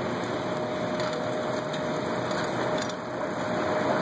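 Steady city street noise from traffic and passers-by on the sidewalk, an even hiss with a faint steady whine running through it.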